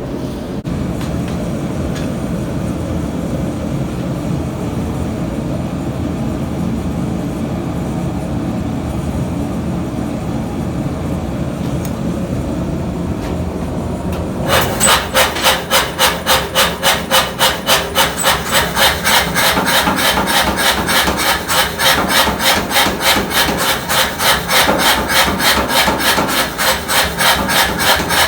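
A steady low rush, then from about halfway a hand tool rasping back and forth on steel stock in even strokes, about two to three a second.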